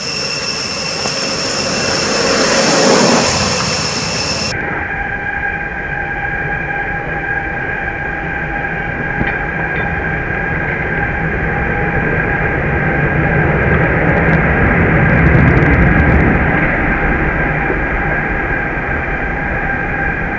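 Steady, high-pitched droning made of several held tones over a hiss, changing abruptly to a lower set of tones about four and a half seconds in; a low rumble swells and fades in the middle.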